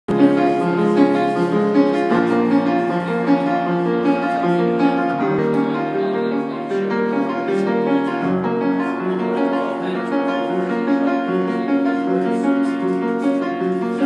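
Upright piano played solo: chords in a steady rhythm, an instrumental introduction before the singing comes in.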